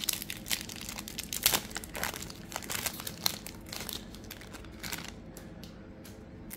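Old trading cards being handled and flipped through, with a run of crinkling and sharp clicking, busiest in the first half and thinning out later.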